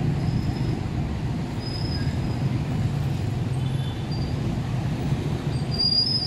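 Street traffic: cars and motorcycle tricycles running in slow, congested traffic, giving a steady low engine rumble. A few short high-pitched squeaks come through, strongest near the end.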